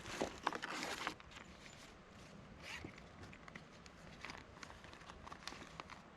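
Handling noise from packaging and parts: a burst of rustling in the first second, then scattered light clicks and rustles.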